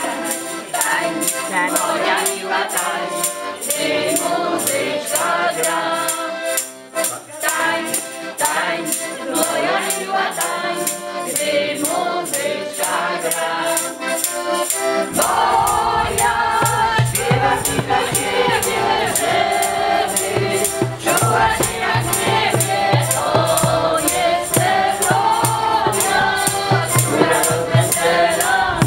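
A group of women singing together in chorus over musical accompaniment, with a shaker keeping a steady rhythm. A deeper bass part comes in about halfway through.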